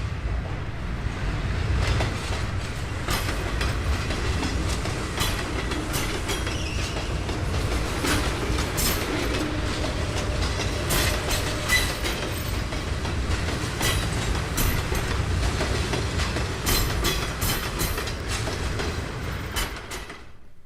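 Vintage field-recorded vehicle sound effect from a 1958 stereo demonstration record: a steady low rumble scattered with sharp clicks, fading out near the end.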